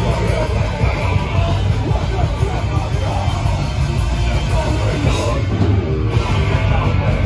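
Hardcore punk band playing live: distorted electric guitars, bass and drums at full volume.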